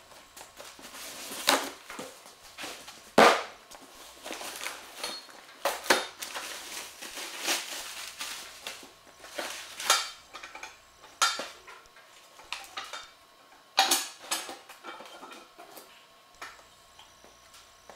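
Cardboard and a plastic bag rustling as an engine stand is unpacked, broken by a series of sharp metallic clanks as its steel parts knock together. The loudest clanks come about three seconds in and again later on.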